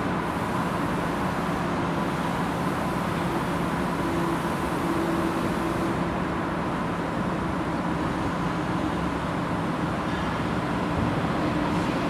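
Steady mechanical hum over a constant background rumble, even in level throughout.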